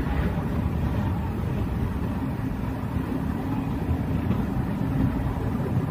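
Steady low rumble of a passenger train's coach rolling slowly along the track, heard from the coach doorway.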